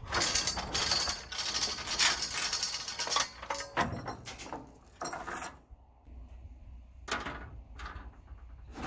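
Metal clinking and rattling as tie-downs are handled on a steel utility trailer carrying a compact tractor: a dense run of clatter and clicks for the first three and a half seconds, then a few separate clanks.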